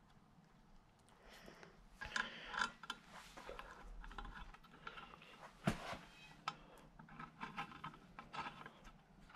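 Small metallic clicks and taps as a brake line and its flare-nut fitting are handled and threaded by hand into a new wheel cylinder on a steel brake backing plate, with one sharper knock a little past halfway.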